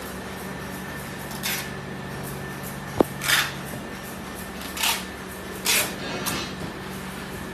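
Steady low hum of a quiet indoor room, with one sharp click about three seconds in and five short rustling noises.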